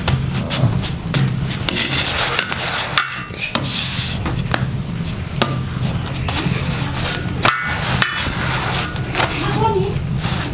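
A flat wooden spatula scraping and knocking against flatbread on the iron top of a wood-burning stove as the bread is turned, with irregular rubs and sharp taps throughout.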